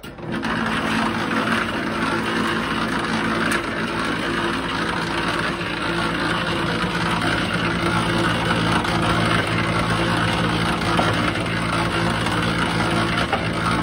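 A converted cement-mixer drum sifter switches on and runs steadily. Its motor hums while the turning drum tumbles dried cow-manure chunks and golf balls against the screen, a grainy rattle over the hum.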